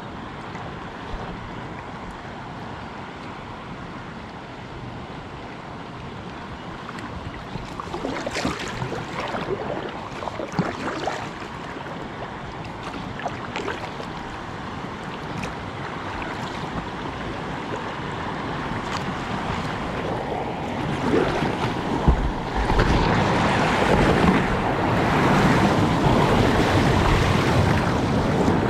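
Kayak paddle strokes splashing and river water washing against a kayak's hull, with wind on the microphone. A run of splashes comes about eight seconds in, and the water grows louder into a steady rush near the end as the kayak runs a shallow riffle of broken water.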